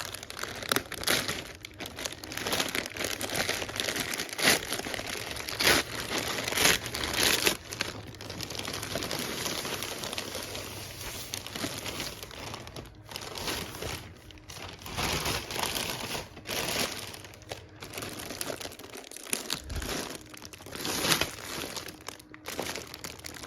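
Packaging crinkling and rustling as it is handled and opened by hand, with sharp crackles and a few short pauses.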